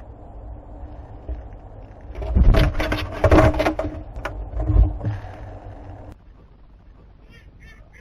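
Birds scuffling and scraping inside a wooden nest box, with loud knocks and wing-like clattering for a few seconds in the middle, followed near the end by a bird's short calls repeated about three times a second.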